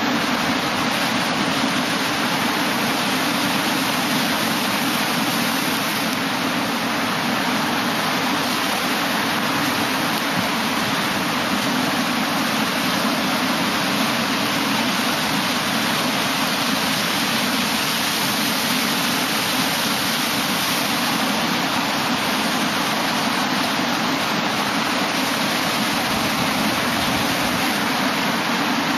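Ocean surf washing over and around a rock revetment: a steady, continuous rush of water.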